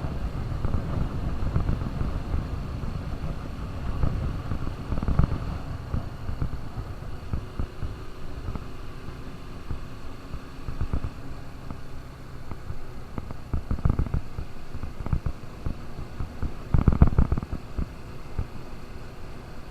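KTM RC 200's single-cylinder engine running as the motorcycle is ridden, a steady low drone that rises and falls, with short louder surges twice near the end.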